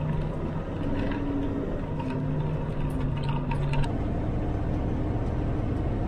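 Farm truck engine running, heard from inside the cab while driving, its steady hum breaking off and coming back a few times as the driver shifts gears, with a few light rattles.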